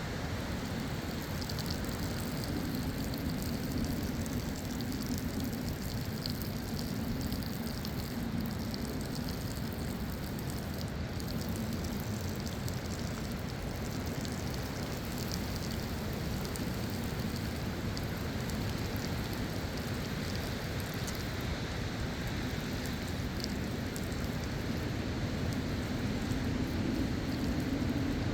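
Hurricane wind and rain: a steady rush of wind with rain falling, the wind rumbling low on the microphone.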